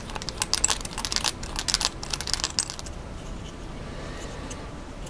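Quick small metallic clicks and taps of a hex driver and a small screw working into an aluminium servo post and carbon-fibre servo plate, thick for about three seconds and then thinning to a few faint ticks.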